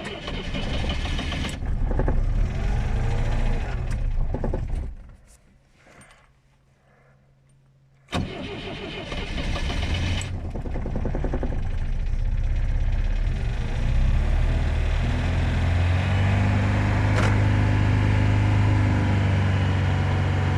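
Moskvich 412's four-cylinder engine being cold-started in hard frost. A laboured start attempt stops about four seconds in. After a short pause the engine catches about eight seconds in and runs, settling into a steady idle.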